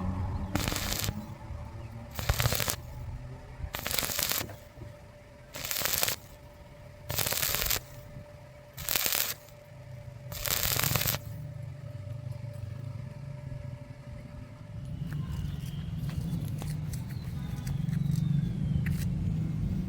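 A series of short welding bursts, seven in a row about a second and a half apart, each crackling for under a second, as in tack or stitch welding. In the second half the welding stops, leaving a low steady hum with a few light metal clinks near the end.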